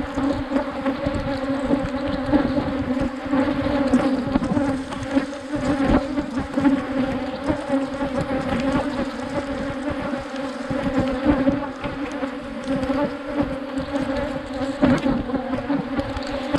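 Africanized honeybees buzzing around an opened hive: a dense, steady drone.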